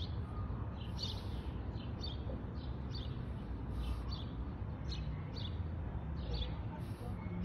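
A small bird chirping over and over, short high notes about two a second, over a steady low rumble.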